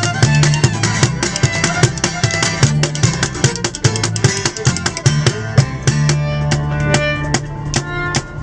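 Live band playing an instrumental passage: driving drum kit with even, rapid beats under strummed guitar and bass, possibly with fiddle.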